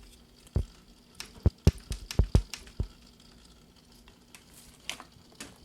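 Handling noise from a Jebao RW-8 wavemaker pump being lifted out of a fish tank: a run of irregular sharp clicks and knocks, bunched in the first three seconds, with a couple more near the end.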